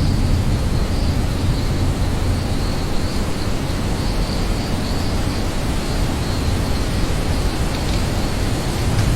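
Steady heavy rain: a dense, even hiss with a deep rumble underneath.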